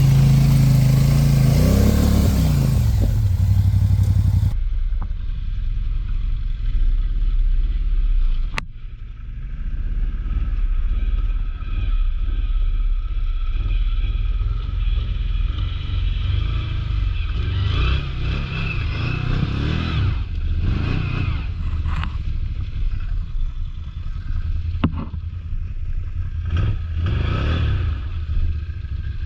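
ATV engine running under riding, revving near the start, with scraping and clattering knocks from the machine over rough ground; the sound turns duller about four seconds in.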